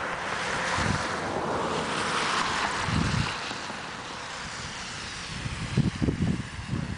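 Wind buffeting the camera's microphone as a steady rushing hiss, with a few low thumps: one about a second in, one about three seconds in, and several close together near the end.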